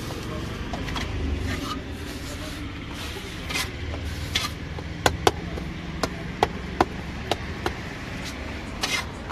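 Metal spatula scraping and tapping on a large flat griddle as bun halves are toasted. From about five seconds in comes a run of sharp clicks, roughly two a second, over a steady low rumble.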